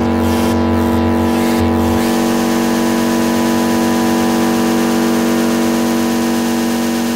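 Live electronic noise music: a steady synthesizer drone with a dense wash of noise. A pulsing low bass part drops out about two seconds in.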